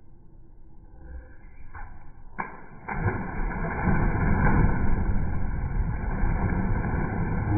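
Children splashing in an inflatable backyard paddling pool. A few sharp knocks come about two to three seconds in, then continuous splashing water.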